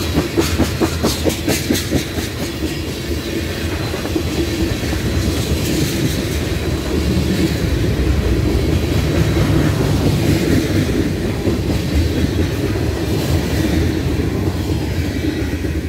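Freight cars rolling past on steel wheels. Tank cars and then covered hoppers make a quick clatter of wheel clicks over the rail joints for the first couple of seconds, then a steady rumble and rattle.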